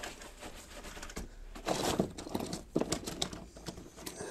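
Rummaging in a soft fabric tool bag full of hand tools: irregular rustling of the bag's fabric with a few light knocks and clicks of tools being moved.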